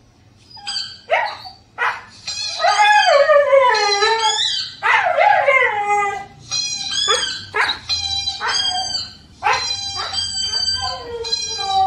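Siberian husky puppy howling and yipping along with a dog howling from a TV. It is a run of short, high, wavering calls, several gliding down in pitch, starting about a second in.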